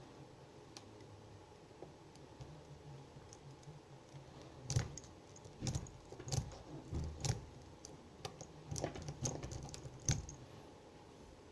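Lock picks clicking and tapping in a 4-pin Medeco cabinet lock as its pins are picked, faint at first, then a run of sharper clicks from about four to ten seconds in.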